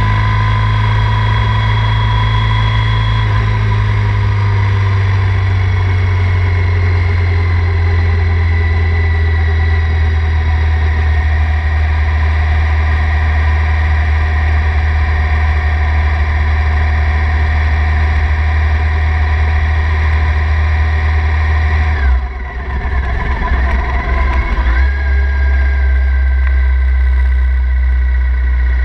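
Triumph Thruxton 900's parallel-twin engine running steadily at cruising revs while the motorcycle is ridden. About 22 seconds in, the engine note briefly dips and wavers, then carries on at a slightly lower pitch.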